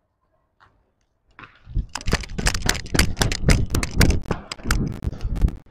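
Inline skate wheels striking and scraping on asphalt in quick running strides as the skater sprints off from a standing start. The sharp strikes begin about a second and a half in, come several a second, and stop just before the end.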